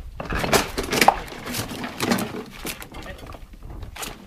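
Footsteps and a dog's paws on collapsed-building rubble: broken bricks, tiles and metal roofing sheets clattering and crunching in irregular knocks.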